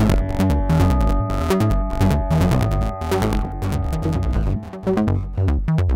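Make Noise System Cartesian Eurorack modular synthesizer playing a fast sequenced electronic pattern: rapid clicky percussive hits over a deep bass pulse and held pitched tones. The pattern dies away near the end.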